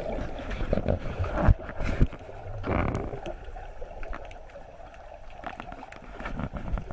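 Muffled water churning and sloshing heard through a submerged camera, with irregular knocks and thumps; the two loudest thumps come about a second and a half and two seconds in.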